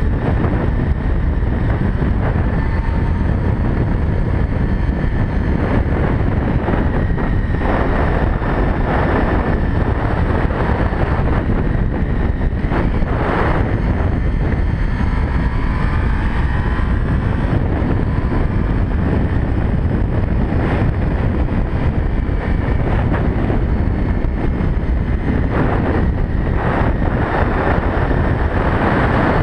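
Sport motorcycle running on the road with heavy wind rushing over the rider-mounted camera microphone, a loud, steady roar of wind and engine.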